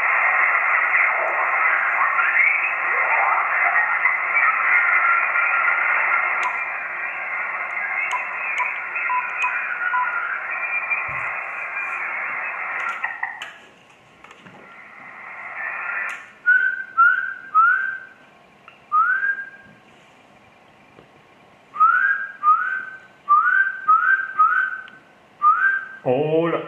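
Icom IC-7000 HF transceiver's speaker receiving the 40-metre band in lower sideband, with hiss, garbled mistuned voices and whistles as it is tuned down to 7.070 MHz. About halfway the hiss drops out suddenly and the receiver's noise reduction is on. What remains is a run of short rising chirps, and a station's voice comes in near the end.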